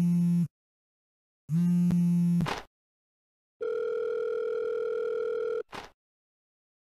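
Telephone ringing tone heard by the caller down the line: rings about a second long, a second apart, twice. Then a different steady electronic tone for about two seconds, cut off by a short click.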